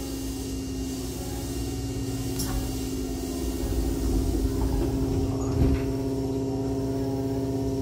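Train car's double sliding doors closing and meeting with a thump about two thirds of the way in, over the steady electrical hum of the stationary electric train.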